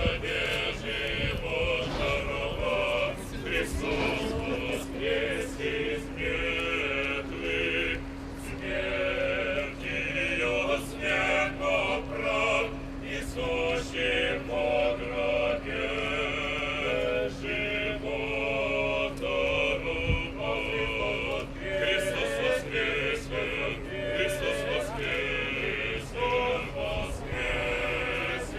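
A choir of mostly male voices chanting in slow, sustained phrases, with a steady low tone held under it for most of the time.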